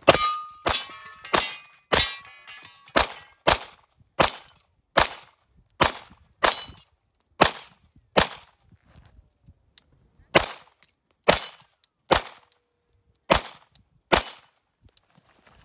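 A string of about eighteen gunshots at a 3-gun stage, fired roughly one to two a second with a pause around nine seconds in, knocking down steel popper targets. The first few shots are followed by a brief metallic ring from struck steel.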